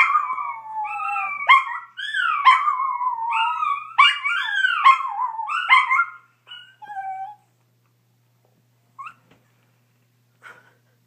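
A chihuahua howling like a coyote: a run of wavering, mostly falling howls that stops about seven seconds in, followed by two brief faint sounds.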